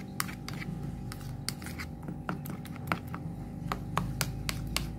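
Metal spoon stirring a beaten egg mixture in a plastic bowl, with irregular light clicks as the spoon knocks and scrapes against the bowl.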